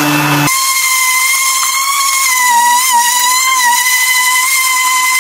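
Electric orbital sander running on a cedar board with 80-grit paper: a loud, steady high-pitched whine that wavers slightly in pitch. A lower hum cuts off abruptly about half a second in, where the whine takes over.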